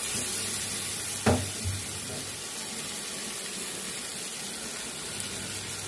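Spiced potato, onion and tomato masala sizzling steadily in hot oil in a pressure cooker as raw rice is tipped in, with one sharp knock about a second in.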